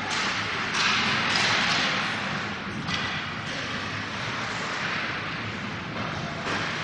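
Ice hockey play on the rink: a hiss of skates scraping the ice that swells up sharply several times, with a few knocks of sticks and puck.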